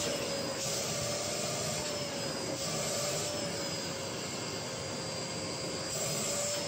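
Vacuum cleaner running steadily, its hose nozzle held to a cat's fur. The motor gives a steady whine that wavers slightly in pitch over an even rush of air.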